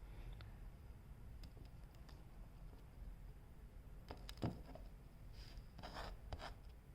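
Small handheld tool working at the insulation of a thin connector wire: a few faint clicks, one sharp click about halfway through, then a short run of scraping and snipping near the end as the insulation is stripped off.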